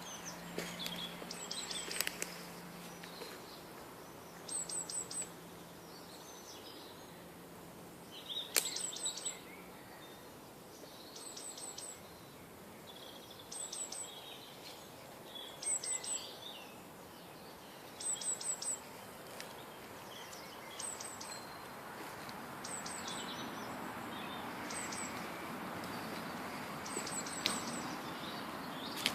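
Wild songbirds singing: one bird repeats a short phrase of three or four quick, high notes every one and a half to two seconds, with other birds' chirps between the phrases.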